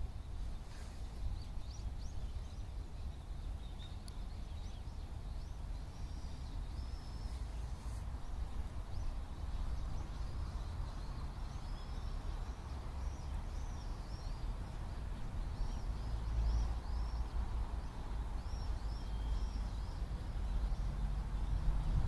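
Faint, high chirps of small birds calling over and over, starting a few seconds in and going on to near the end, over a steady low rumble.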